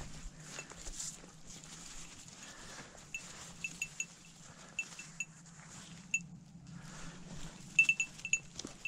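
A duck being plucked by hand: soft, repeated rustling and tearing of feathers. Light metallic tinkling clicks sound several times about three to five seconds in and again in a quick cluster near the end.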